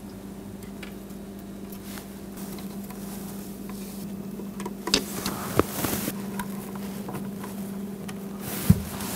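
Handling sounds of a self-adhesive LED light strip being pressed onto the underside of a wooden cabinet: soft rustles of the tape and backing, a few light taps and clicks about halfway through and one sharper click near the end, over a steady low hum.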